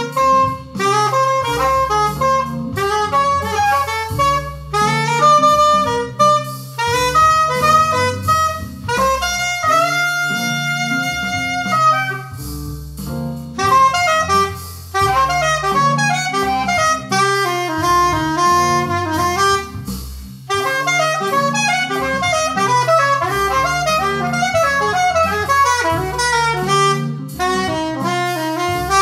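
Instrumental electronic jam: a lead melody of quick runs over a bass line, with a few notes held about ten seconds in.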